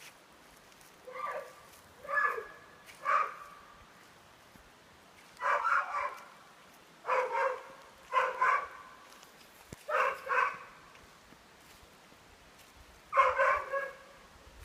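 An animal giving about a dozen short calls, singly and in quick pairs, with pauses of a second or two between them.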